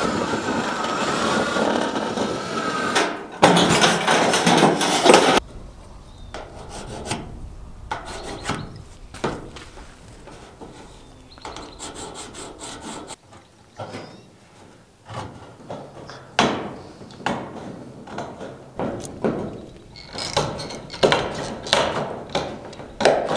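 Cordless drill/driver running with a hex bit on steel building siding, its pitch wavering, louder for a couple of seconds before it stops. Quieter scraping and handling of the metal sheet follow, then near the end a run of short cuts with tin snips through the steel siding.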